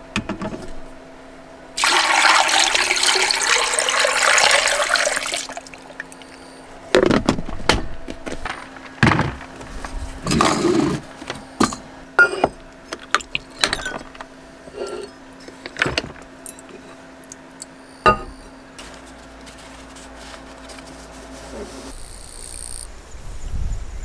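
Water pouring into an insulated water jug packed with ice: a steady rush lasting about three and a half seconds. Scattered knocks and clicks of the jug and a cup being handled follow, with a brief splash about ten seconds in.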